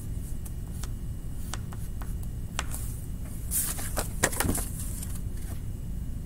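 Short drawing strokes on paper, scratchy and scraping, with a quick cluster of strokes about three and a half to four and a half seconds in, over a steady low hum.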